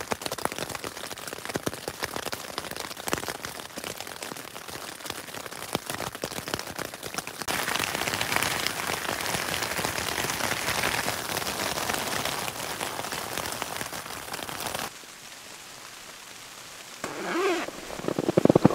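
Heavy rain pattering on a tent, dense and continuous with countless individual drop ticks, growing heavier midway and then dropping off abruptly about fifteen seconds in.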